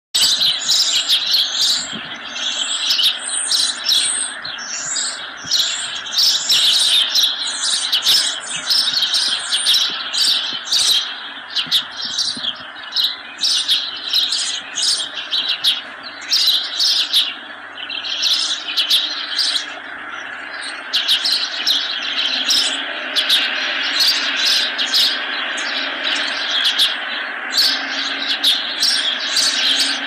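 Several birds chirping in quick, continuous series of short calls over the steady rush of water running through a shallow, rocky stream.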